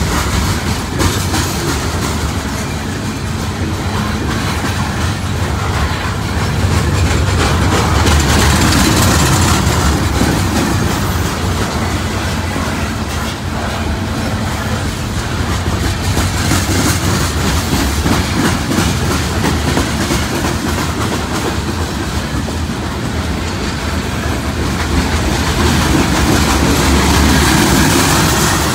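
Freight train's coal cars rolling past close by: a steady, loud rumble of steel wheels on rail, with clicks and clacks as the wheels cross the rail joints.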